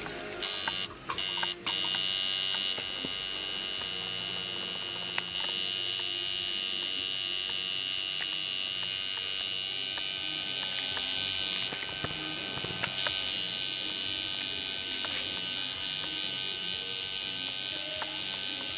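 Tattoo machine buzzing steadily as its needle inks dots into the skin. It cuts out briefly twice in the first couple of seconds, then runs without a break.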